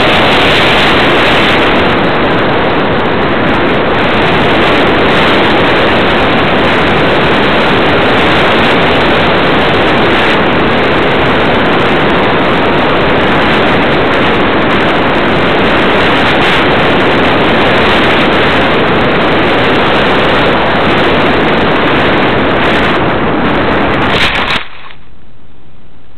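Steady, loud rush of airflow noise on a small RC airplane's onboard camera microphone in flight. It ends abruptly with a short bump near the end as the plane comes to rest in grass.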